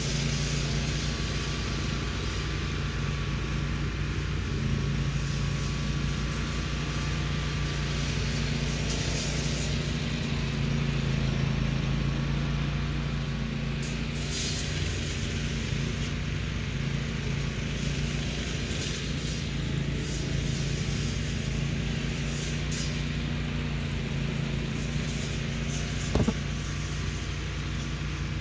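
An engine running steadily at a constant speed, with one short knock about two seconds before the end.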